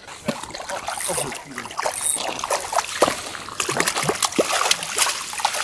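A hooked trout thrashing and splashing at the water's surface while it is drawn into a landing net, in quick irregular bursts of splashing.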